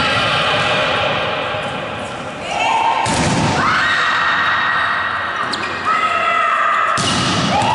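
Volleyball rally in an echoing gym: players' high-pitched shouts and calls, with two sharp smacks of the ball, about three seconds in and near the end.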